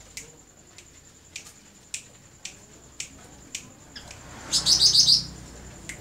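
Songbird calling: a series of short, sharp chips about every half second, then a loud, rapid trill of about eight high notes lasting under a second, about four and a half seconds in.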